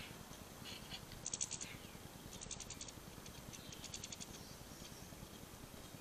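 European goldfinches twittering: three short runs of rapid, high tinkling notes, with a few softer chirps in between.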